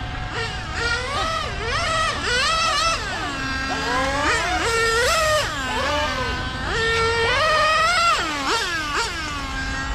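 Serpent 990 1/8-scale on-road RC car with an OS Speed nitro engine lapping the track. Its high engine whine revs up and falls off again and again, about once a second.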